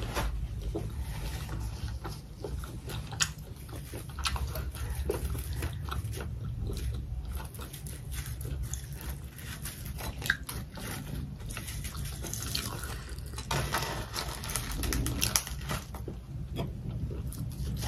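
Close-miked chewing of a full mouthful of food, with wet mouth sounds and many small clicks.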